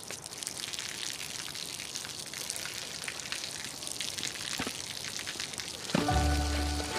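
A thin stream of water falls from overhead and patters and splashes steadily on wet pavement and into a plant pot. Background music with a deep bass note comes in about six seconds in.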